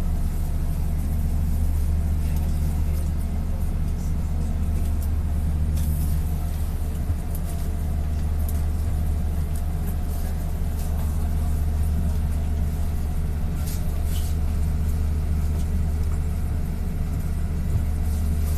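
Bus engine idling, heard from inside the cabin: a steady low hum with a few faint clicks.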